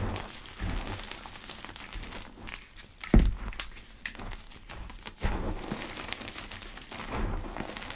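Gym chalk pebbles crushed and crumbled by hand, an irregular run of soft crackles with a few dull thuds, the loudest about three seconds in.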